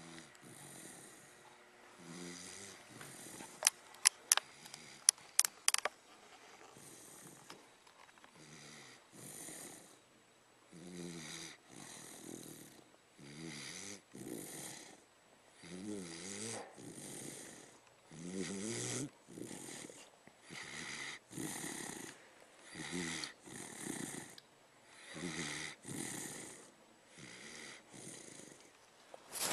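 Dog snoring in its sleep, a fluttering snore on each breath about once a second. A quick run of sharp clicks comes about four to six seconds in.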